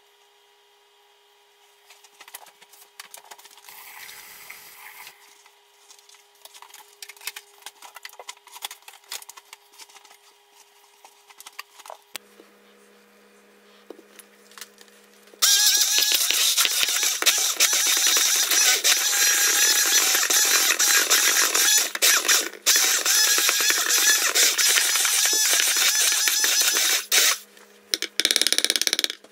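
Electric hand mixer starting suddenly about halfway through and running loudly with its beaters working through banana in a bowl, cutting out briefly once, stopping near the end, then running again in one short burst. Before it, only faint scattered clicks and handling noises.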